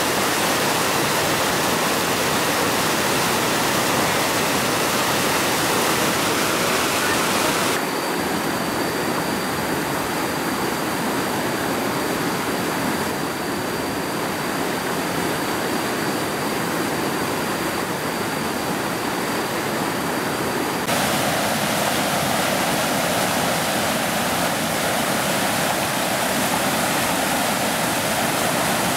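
Muddy river water rushing and churning in a white-water torrent through a gap in a weir. The sound changes abruptly about 8 s in, going duller with a faint steady high tone, and changes again about 21 s in.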